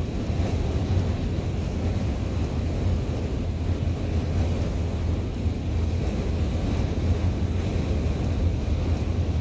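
Steady low rumble of a vehicle driving through sandstorm winds: road noise mixed with wind buffeting.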